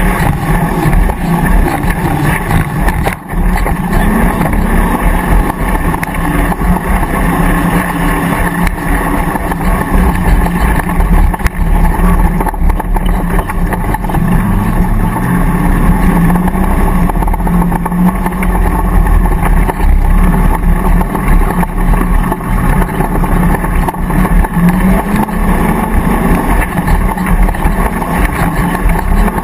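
Land Rover V8 engine running hard under load over rough grass, revs rising and falling with the throttle, with a brief lift off the throttle about three seconds in.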